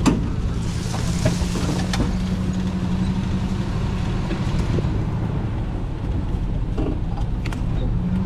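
Off-road buggy's engine running steadily with a low hum, with a sharp knock at the start and a few lighter knocks and rattles later.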